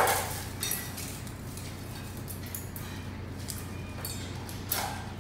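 A stainless steel dog bowl set down on a tile floor with a loud clink, then puppies eating dry kibble from steel bowls: scattered light clinks and ticks of kibble and bowls, with another sharper clink near the end.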